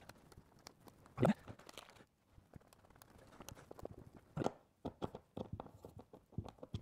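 Threaded insert nut being screwed into a pine pallet-wood board with an Allen bit in a hand driver: irregular crunching and clicking as the insert threads into the wood. There is a louder knock about a second in and another just past the middle.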